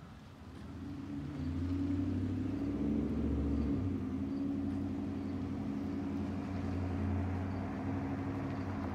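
A motor vehicle's engine running nearby, a low steady hum that grows louder about a second in and then holds.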